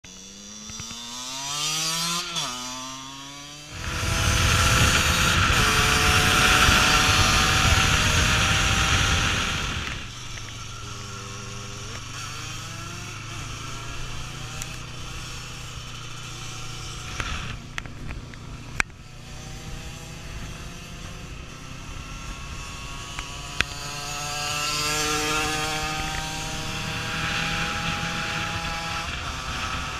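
A derestricted 50cc two-stroke motorcycle engine, a 2003 Aprilia RX50, revving high and climbing in pitch through gear changes while riding, with a buzzy, chainsaw-like note. A loud rush of wind noise covers it from about 4 to 10 seconds in, and there are two sharp clicks later on.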